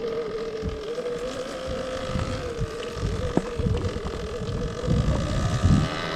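Electric enduro motorcycle riding, its motor giving a steady whine at one pitch, with wind buffeting the microphone in irregular low gusts.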